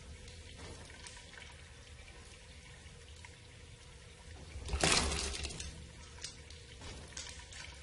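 A bathroom sink: quiet background hiss, then a brief rush of water at the basin about five seconds in, followed by a few light clicks.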